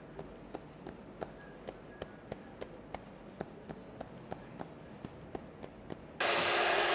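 Fingertips tapping lightly and rhythmically on a person's head, about three soft taps a second. About six seconds in, a loud steady whirring hiss starts abruptly.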